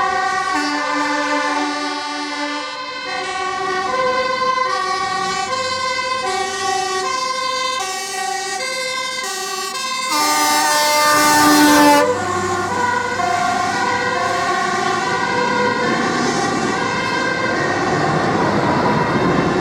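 Fire engine two-tone siren, switching between a high and a low tone about every half second to a second, with one loud horn blast of about two seconds around ten seconds in, the 'bullhorn', as the truck passes; the siren goes on after the blast with its pitch slightly bending.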